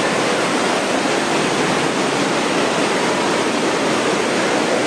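Floodwater rushing and churning through a subway tunnel, a loud steady rush of water with no break.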